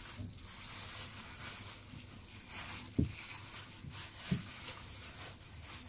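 A thin plastic wrapper being crinkled and handled, with two short soft knocks, about three seconds in and again a second and a half later.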